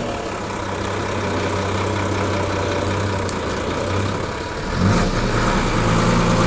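ZIL-131 army truck's engine running steadily at low revs, then rising and running louder from about five seconds in as the truck tries to pull a heavy wagon.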